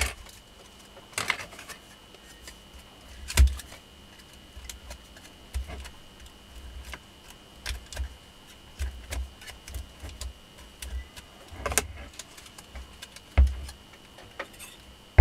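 Scattered light clicks and taps, with a few sharper knocks, as a flat steel tool presses insulating slot lids into the slots of a treadmill DC motor's wound armature held in the hand.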